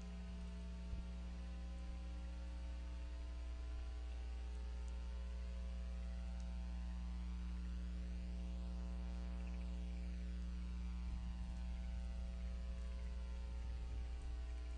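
Steady electrical mains hum with a buzzy series of higher overtones, picked up on a nest camera's audio feed.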